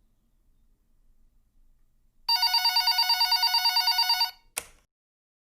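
Telephone bell ringing as a sound effect: one ring lasting about two seconds, a rapid trill, starting about two seconds in, followed shortly by a brief click.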